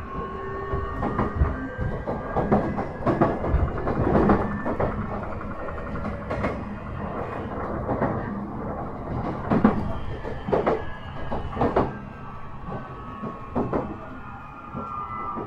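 JR E131-1000 series electric train running between stations, heard from inside the car: steady rumble with repeated sharp clacks of the wheels over rail joints and points. The traction motors' thin electric whine is heard at the start and again near the end.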